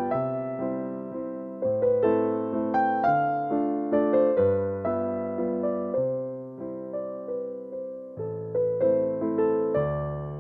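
Background music: an electric piano playing a gentle melody over bass notes, with a steady beat of struck notes.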